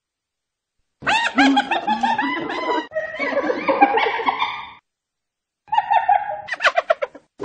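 Hyena laughing: a rapid series of high, wavering, rising-and-falling cries begins about a second in and runs for nearly four seconds. After a short pause comes a second burst that breaks into quick, choppy cackles.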